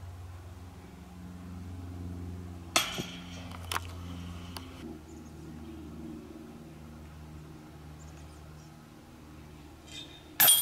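Disc golf putts striking a basket's metal chains: a clash and rattle of chains about three seconds in with a second knock a second later, then a louder chain hit near the end. A low steady hum runs underneath.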